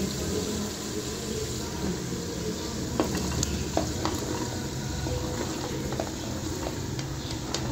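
Spicy onion-tomato masala sizzling in a cooking pot while it is stirred with a wooden spoon. A few light clicks and knocks come about three to four seconds in, as cauliflower florets are tipped in from a plate.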